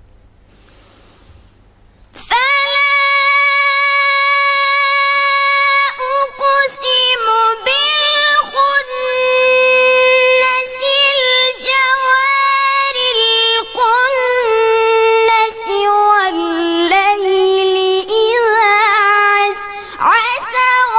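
A high voice chanting Quran recitation in a long, melodic tajwid style, holding drawn-out notes with ornamented turns and brief pauses for breath. It starts about two seconds in, after a short lull.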